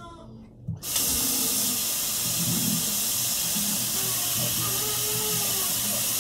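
Water running hard from a tap into a sink, turned on about a second in and then running steadily, with a newborn crying faintly underneath.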